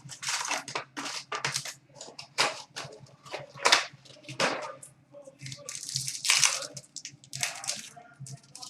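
Foil and plastic trading-card pack wrappers crinkling and tearing as they are opened by hand, in a run of irregular rustling bursts.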